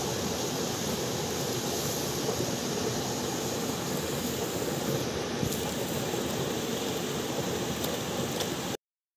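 Steady rushing of flowing river water, an even noise that cuts off suddenly near the end.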